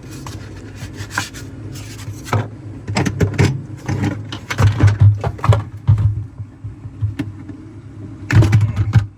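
Knocks, clatters and scrapes of plastic parts being handled inside a refrigerator's freezer as the ice maker and back panel are taken out. A steady low hum runs underneath, and the loudest clatters come in the middle and again near the end.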